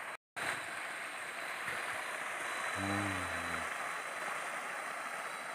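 Steady night chorus of crickets and other tropical forest insects, an even hiss with thin high tones running through it. It drops out for an instant just after the start, and a brief low hum comes in about three seconds in.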